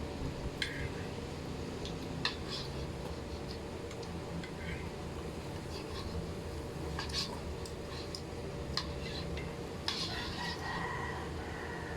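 Spoon or cutlery clicking against a bowl and plate in scattered light taps during eating, over a steady low hum. Near the end a drawn-out animal call begins.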